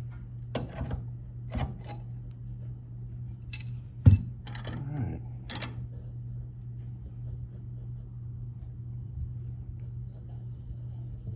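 Metal steering-rack parts clinking and tapping as they are handled and threaded together, with a sharper metallic knock about four seconds in, over a steady low hum.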